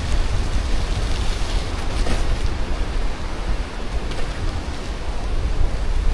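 Wind buffeting the microphone while cycling: a steady, loud rush with a deep, gusty rumble.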